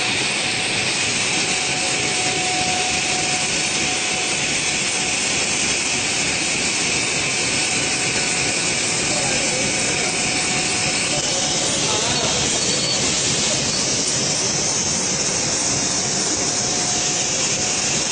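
Plastic bag cutting machine with film slitting, running: a steady, even mechanical noise with a faint steady tone and no clear rhythm.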